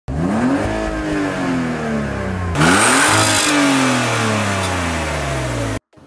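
A car engine free-revved twice in park: each rev climbs quickly and then dies away slowly, the second a little louder than the first. The sound cuts off abruptly near the end.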